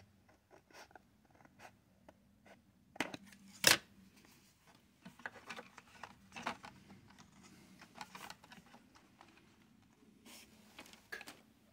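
Scissors cutting a thin plastic sheet: a run of small snips with one sharp, loud snip about four seconds in. After that comes softer scraping, rustling and a few light taps as the cut sheet is handled against the model.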